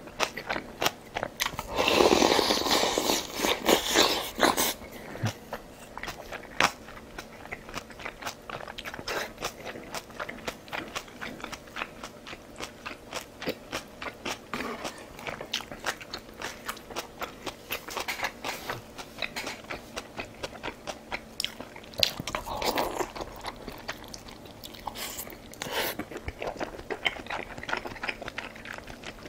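Close-miked eating: a person chewing and crunching food, with a steady run of small crisp clicks. Louder, noisier bursts come about two seconds in and again about 23 seconds in.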